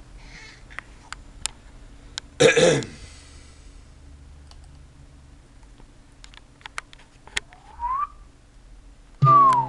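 Scattered sharp clicks, a short loud burst of noise about two and a half seconds in, and a brief rising whistle near the end. Acoustic guitar music starts just before the end.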